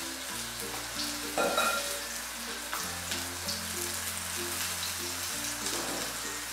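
Spice-coated brinjal (eggplant) slices sizzling steadily in shallow oil in a nonstick frying pan, with brief flares of sizzle as more slices are laid in. Soft background music plays underneath.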